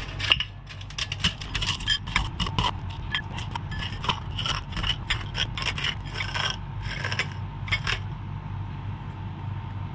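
Smith's salt and vinegar potato chips being crushed by hand in a bowl: a rapid run of dry crackling crunches that stops about eight seconds in. A steady low hum runs underneath.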